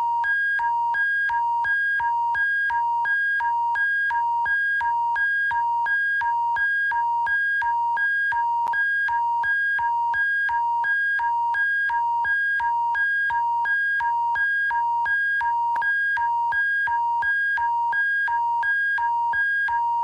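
Alberta Emergency Alert attention signal: a loud, steady two-tone electronic alert alternating rapidly between a lower and a higher pitch, about two of each per second, the attention tone that precedes an emergency broadcast message.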